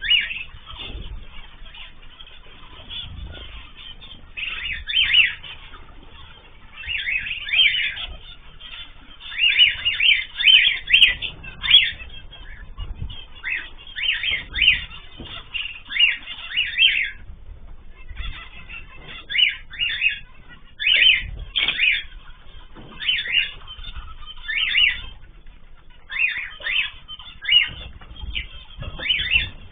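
Aviary cage birds (cockatiels, zebra finches and canaries) calling in busy clusters of short chirps and squawks every second or two, with wing flutters among them.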